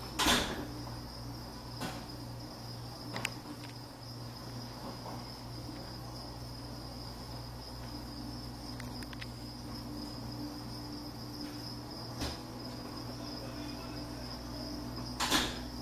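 An insect chirring steadily in a high, even tone over a low hum. A few short knocks break in, the loudest about half a second in and near the end.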